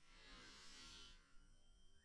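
Near silence: faint outdoor ambience, with a soft hiss in the first second.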